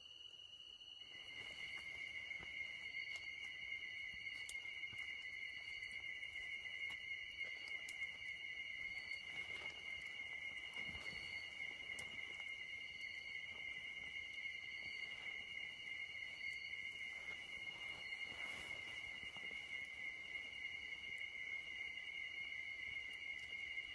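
Night insects calling: two continuous high trills at slightly different pitches, the lower one joining about a second in, with short higher chirps every second or two. A few faint rustles now and then.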